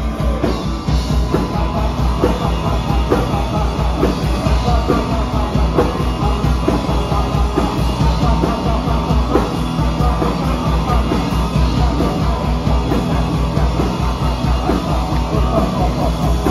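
Live punk rock band playing an instrumental passage with no singing: electric guitars and bass over a steady drum beat, with trumpet and trombone.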